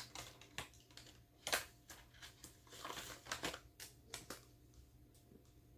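Soft rustling and crinkling of banknotes and plastic binder pockets being handled, with scattered sharper clicks, the loudest about a second and a half in.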